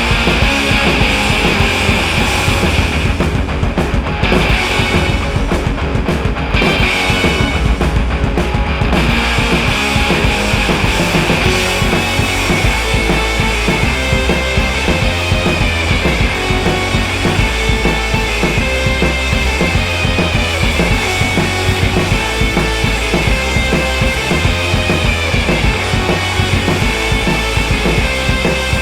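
Background rock music with a driving drum kit and bass.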